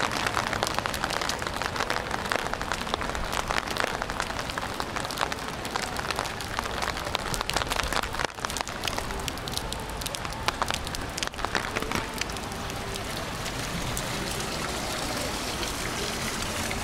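Rain falling steadily, with many close drops pattering thickly for most of the time, settling into a smoother, even hiss of rain over the last few seconds.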